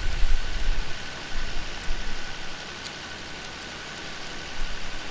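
Steady outdoor background hiss, with low rumbling in the first second or so.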